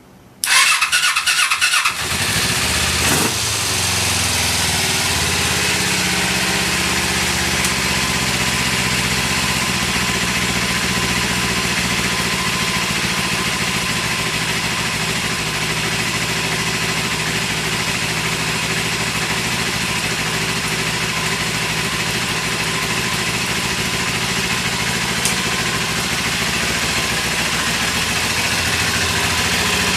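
Kawasaki Eliminator 250SE's parallel-twin engine cranked on its electric starter for about a second and a half, catching about two seconds in and then idling steadily. The seller notes it starts fine on the starter with no abnormal noises.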